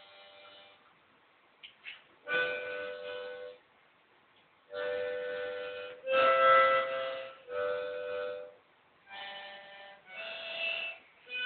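Harmonica playing a string of separate held chords, each about a second long, with short breaks between them.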